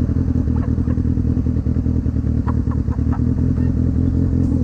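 Kawasaki Ninja ZX6R motorcycle engine running at a steady pace, a continuous low drone with no revving up or down.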